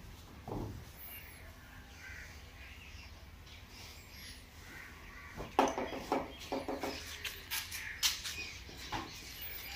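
A crow cawing repeatedly in the second half, with a few thin high chirps of small birds, over the soft rustle of a blanket being spread and smoothed on a bed.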